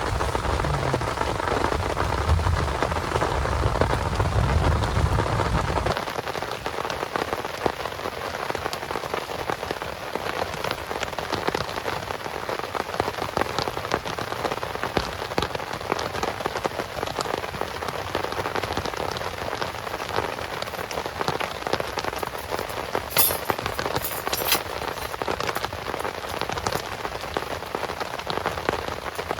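Heavy rain falling steadily, with many separate drop strikes. A deeper low rumble under the rain stops abruptly about six seconds in, leaving a lighter rain hiss.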